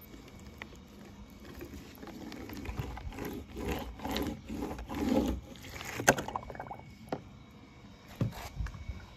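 Small die-cast toy car's wheels rolling and scraping back and forth through wet paint on paper, in several short strokes. A sharp click about six seconds in and a couple of lighter taps follow as the car is knocked and set down.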